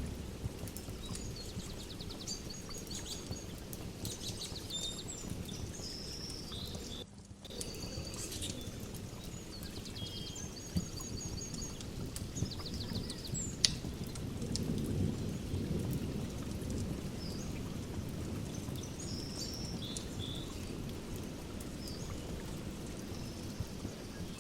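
Ambient nature-and-fireplace soundscape: birds chirping and trilling, over a steady hiss with a few sharp crackling pops from a fire. A low rumble of distant thunder swells in the middle. The sound drops out briefly about seven seconds in.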